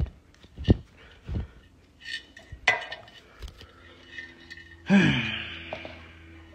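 Pieces of broken glass clinking and knocking as they are handled and cleaned up, in several separate strikes, some of them ringing. About five seconds in, a louder clatter comes with a short sound that falls in pitch.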